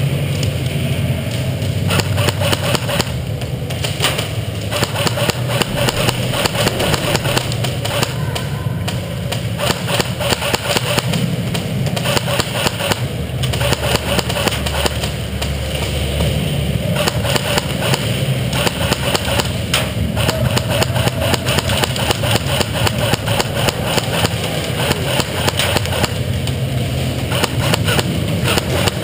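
Airsoft skirmish: a dense run of irregular clicks and knocks from airsoft guns and gear, over a steady low rumble.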